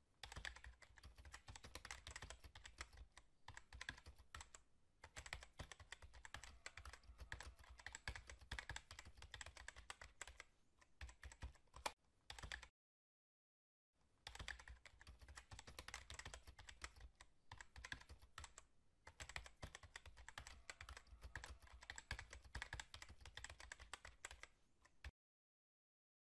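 Rapid computer-keyboard typing sound effect, a dense stream of key clicks. It runs for about twelve and a half seconds, cuts to dead silence for about a second, then runs again for about eleven seconds and cuts off shortly before the end.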